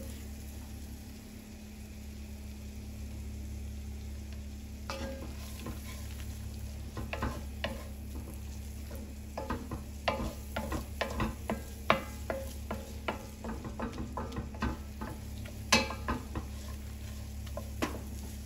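Wooden spatula stirring and scraping diced onions frying in butter and flour in an enamelled cast-iron pan, with a low sizzle over a steady low hum. Short scrapes and taps against the pan bottom come sparsely at first and thicker from about five seconds in, lifting the browned bits off the bottom of the pan so they don't burn.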